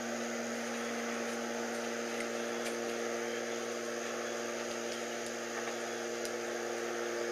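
A steady, unexplained hum from across an open field: several fixed low tones held without change over a hiss. Neither a fan nor the nearby transformer is making it.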